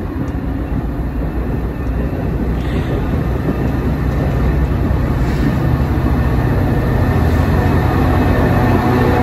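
Metra bilevel gallery commuter cars rolling past on the rails, a steady running noise of wheels on track that grows louder toward the end, where a low engine hum comes in.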